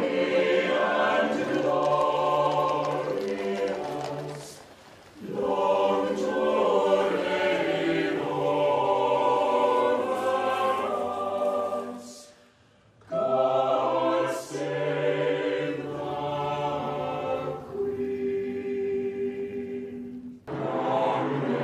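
A choir singing slow, held phrases, with short breaks between phrases three times.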